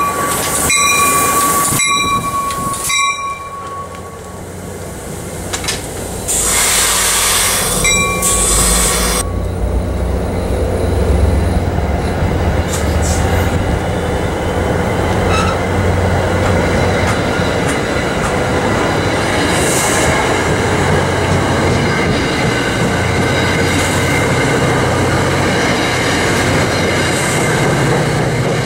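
NJ Transit push-pull commuter train rolling past close by. First a high squealing tone with several overtones, then a burst of hiss lasting about three seconds, then a steady low rumble and wheel noise as the coaches go by.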